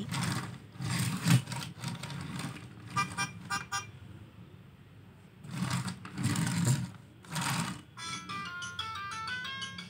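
VTech Go Go Smart Wheels dumper truck toy playing its electronic sounds through its small speaker as it is rolled along: bursts of sound effects and short jingles. Near the end, after the front button is pressed, it plays a beeping electronic tune.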